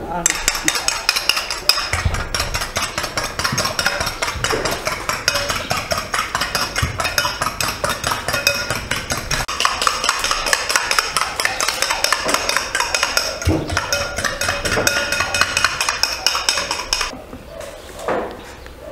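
A metal utensil stirring rapidly in a bowl, clinking against its sides many times a second with a light ringing; it stops abruptly near the end.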